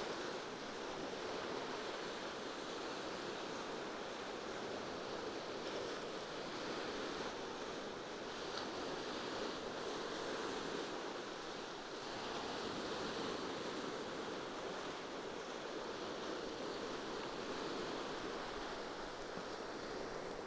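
Steady rushing of sea waves washing onto the shore, with wind.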